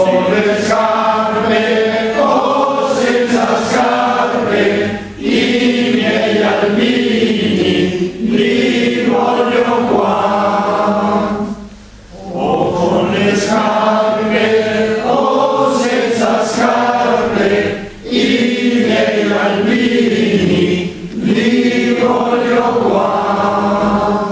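A choir of people with Parkinson's disease singing an Italian First World War song, in long phrases with short breaks between them.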